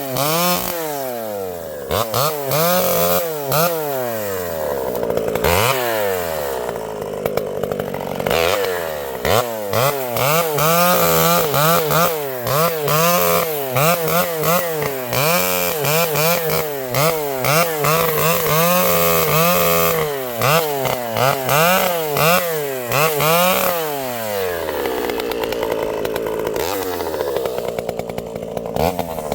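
Vintage Pioneer two-stroke chainsaw running with a governed carburettor, its engine revving up and falling back again and again, roughly once a second. Near the end it settles to a smoother, lower running.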